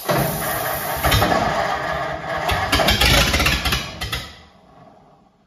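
1950 Ford F1's flathead V8 cranked on the starter and trying to fire. The sound starts suddenly and is loud for about four seconds, then dies away.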